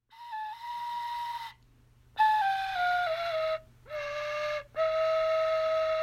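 Background music: a flute-like melody of a few held notes, stepping downward in pitch, with short silent breaks between phrases.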